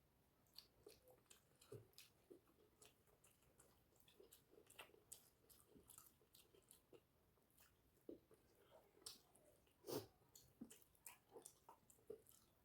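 A person chewing food with faint, irregular wet mouth clicks and smacks, several a second, with one louder smack about ten seconds in.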